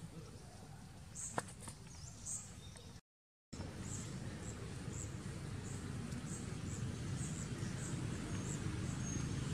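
Outdoor ambience: short, high bird chirps repeating about twice a second over a steady low rumble. A sharp click sounds about a second and a half in, and the sound drops out briefly about three seconds in.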